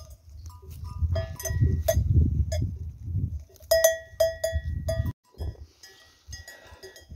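Bells on a grazing flock of sheep clinking and clanking irregularly as the animals move and feed. A low rumbling noise sits under the bells during the first few seconds.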